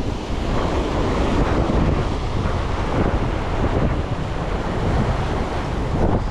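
Wind buffeting the microphone over the steady wash of sea waves, a loud unbroken rush with no distinct events.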